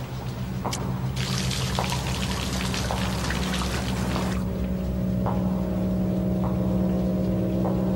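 Slow footsteps of shoes on a wet floor, about one step a second, over a steady low drone. A loud rush of rain-like hiss starts about a second in and cuts off after about four seconds.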